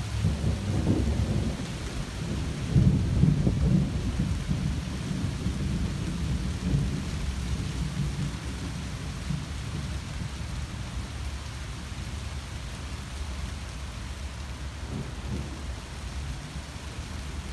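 Thunder rolling in a low rumble that peaks about three seconds in and slowly dies away, over steady falling rain.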